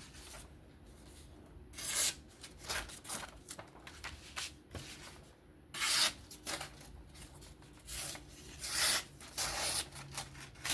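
Steel knife blade stroked freehand across a sharpening stone: a series of short, uneven scraping strokes as the edge is reworked.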